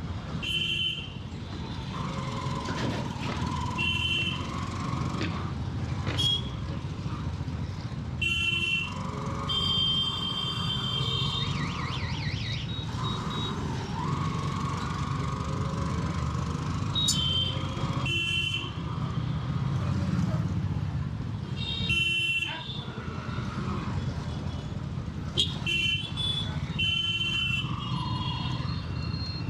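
A 100cc motorcycle is ridden through traffic, with a steady engine and road rumble heard through a helmet-mounted mic. Short vehicle horn blasts sound several times along the way.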